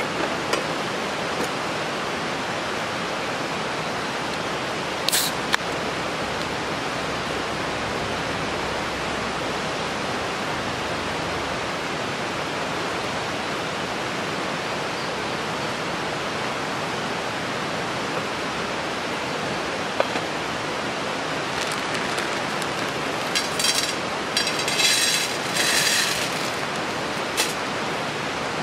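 Steady rushing of a nearby stream, with a couple of sharp clicks about five seconds in and a short rattling clatter near the end.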